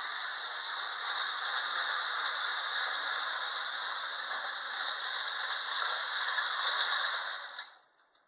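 Hafner Wyandotte tin toy train, refitted with a Lionel electric motor, running on tin track: a steady rattling whir with the clickety-clack of the wheels on the rails. It cuts off suddenly about a second before the end as the train stops.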